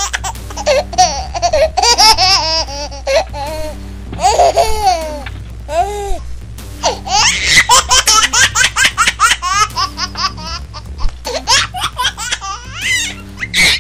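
A baby laughing in quick giggling bursts over background music with a steady low hum.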